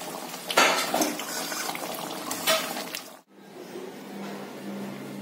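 Metal spatula stirring and scraping a kadai of bubbling fish curry, with a few sharp knocks against the pan. The sound cuts off abruptly about three seconds in, leaving a quieter steady hum.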